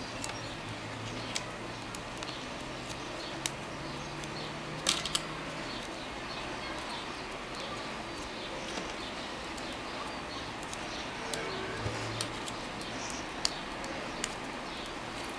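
Small plastic rings cut from bottle caps clicking and ticking against each other as they are threaded into a chain by hand, in scattered irregular clicks with a small cluster about five seconds in, over a steady background hiss.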